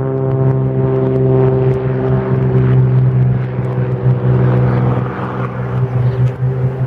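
Propeller airplane's piston engine running with a steady drone that weakens about five seconds in.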